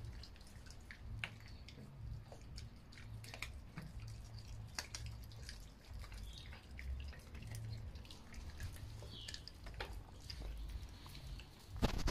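Two Chinese Crested dogs chewing raw meaty bones: scattered wet clicks and small crunches of teeth on bone, with a louder quick run of crunching clicks near the end.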